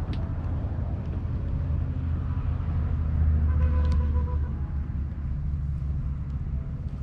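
Low, steady rumble that swells for a second or so about three seconds in, with a faint hum and a couple of light clicks.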